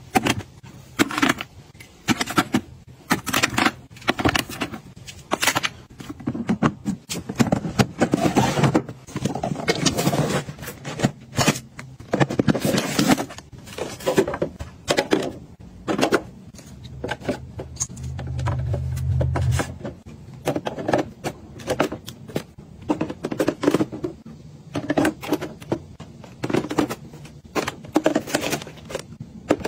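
Hands handling and setting down small plastic items: a game controller placed on a shelf, a white organizer box fitted together, and paper tea sachets packed into clear plastic drawers. It is a steady string of light taps, clicks and rustles, with a short low hum a little past the middle.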